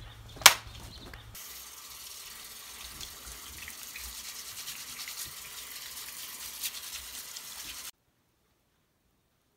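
A sharp knock about half a second in, then a bathroom faucet running into a sink while dirty hands are scrubbed under the stream; the water sound cuts off abruptly about eight seconds in.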